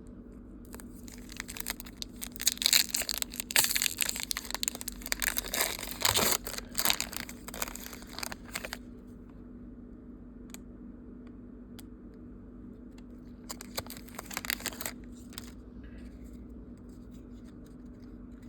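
Booster pack of Pokémon trading cards being torn open and its foil wrapper crinkled, in a long spell of tearing and crackling over the first half, then a shorter burst of crinkling later. A faint steady low hum runs underneath.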